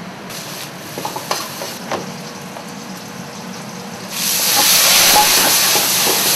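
Wok cooking on a gas burner in a restaurant kitchen: a steady low hum with a few metal clinks, then about four seconds in a loud sizzling hiss starts as the wok flares up, and it holds to the end.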